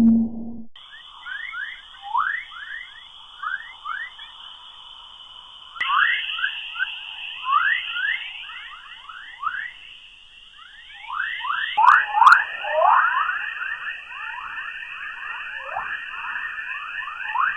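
A NASA spacecraft radio recording played back as sound: a steady high hiss with many short whistles, each falling quickly in pitch. They come sparsely at first and crowd together from about eleven seconds in.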